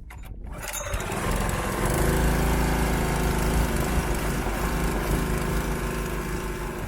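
Small Honda gasoline engine of a hookah (snuba) dive air compressor, coming up to speed in the first second or two and then running steadily.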